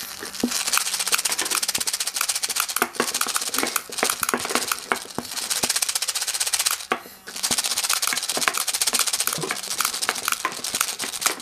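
Homemade electric full-auto BB gun firing: its hobby motor runs while the spinning gear flicks 6 mm BBs from the hopper out of the barrel in a fast, rattling stream of clicks. There is a short break about seven seconds in before the rattle resumes. The motor's gear is not yet adjusted right, so many BBs go out weakly, only about 3 feet.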